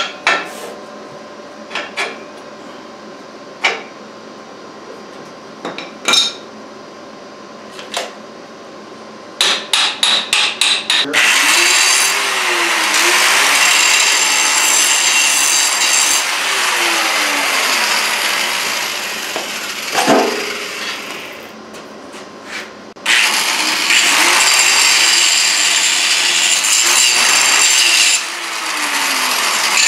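Hammer blows on steel, single knocks spaced a second or two apart, then a quick run of about six blows. Then a power tool runs on the metal in two long stretches, its low pitch dipping and recovering as it works.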